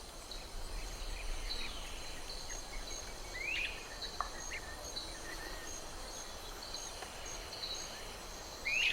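Wetland ambience: a high insect call pulsing at an even rate over a faint steady hiss, with a few short rising bird chirps, the clearest about a third of the way in and near the end.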